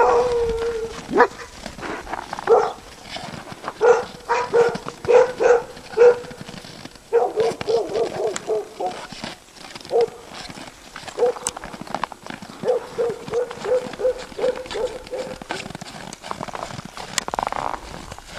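A dog barking: a few single barks, then several quick runs of barks.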